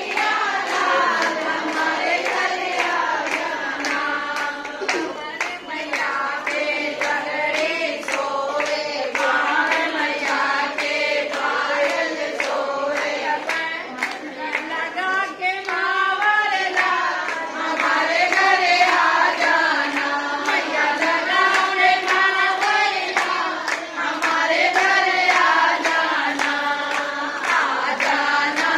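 A group of women singing a devotional bhajan together, clapping along in a steady rhythm.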